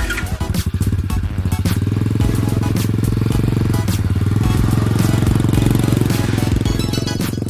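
Small pit bike's single-cylinder engine catching at the very start and then running at a steady speed with a rapid, even putter.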